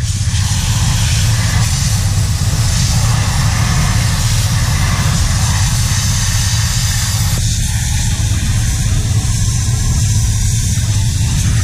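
Pressure washer running, a steady pump drone under the hiss of the high-pressure water jet spraying.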